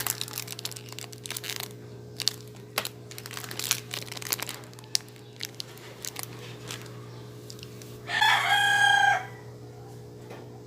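A rooster crows once, about a second long, roughly eight seconds in; it is the loudest sound here. Before it there are scattered light clicks and rustles of handling, typical of unboxing packaging, over a steady low hum.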